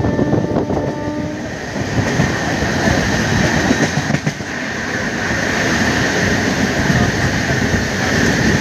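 Passenger train coaches running at speed on the rails: a steady loud rumble of wheels on track, with rushing air. A short pitched tone ends about a second and a half in, and a high steady ring sets in from about two seconds on.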